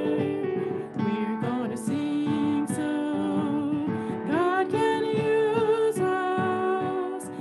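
Keyboard playing gospel piano chords, with a woman's voice singing along in a few sliding notes.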